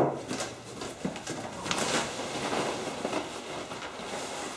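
A sharp knock, then rustling and crackling of foam packing peanuts being dug through in a shipping box.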